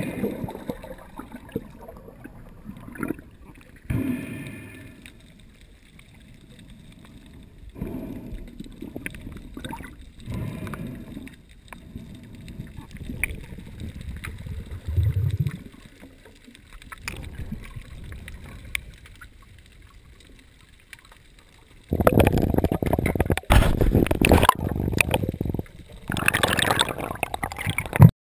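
Water gurgling and sloshing against a waterproof camera housing, dull and muffled, with scattered knocks. From about 22 seconds in it becomes much louder, dense splashing and bubbling in several broken stretches.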